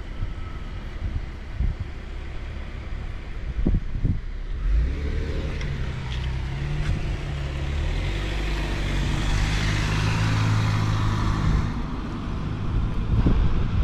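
Car engine and road noise: low rumbling wind buffeting on the microphone with a few thumps for the first few seconds, then an engine hum from about five seconds in that steps up in pitch. A hiss of tyre and road noise swells in the middle and fades about twelve seconds in.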